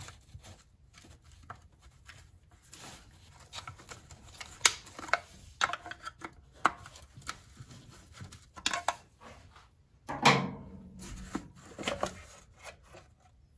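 Scattered light clicks and knocks of the old distributor cap's metal hold-down clips being released and the cap lifted off a small-block Chevy 350, with one louder clatter about ten seconds in.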